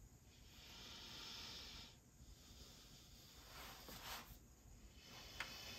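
Near silence with two soft hisses, each lasting a second or so, the first early and the second about two-thirds through, and a faint click near the end.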